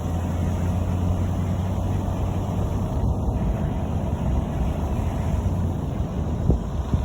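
Steady rushing of a river in flood, fast high water running on without a break. A few low wind bumps on the microphone near the end.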